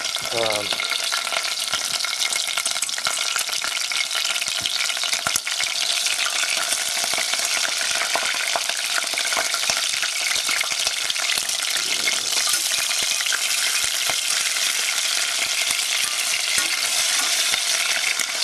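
Ground beef frying in hot oil in a small stainless steel saucepan: a steady sizzle with scattered pops as the oil spatters.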